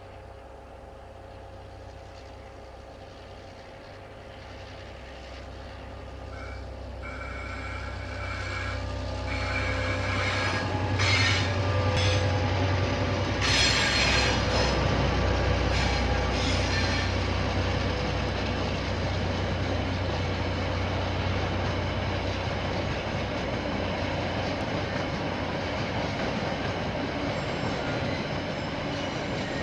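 A KiwiRail train approaching and passing: a low diesel rumble grows louder over the first ten seconds or so, with high wheel squeal from about seven to ten seconds in. Clicks and rail clatter follow, then the steady noise of the wagons rolling past.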